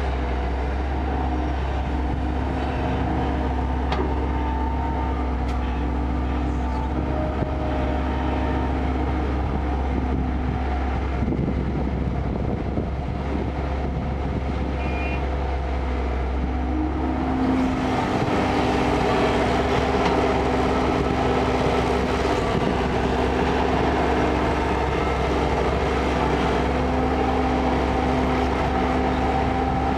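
Kobelco excavator's diesel engine running steadily, getting louder about two-thirds of the way through.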